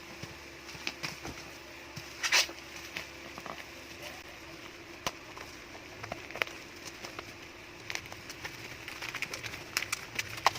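Packaging and the mini rice cooker being handled: scattered light clicks and crinkles, with a louder clatter about two seconds in and quicker clicks near the end. A faint steady hum lies underneath.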